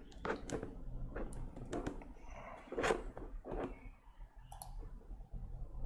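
Faint, irregular clicks and taps, a few a second, from hands handling a smartphone.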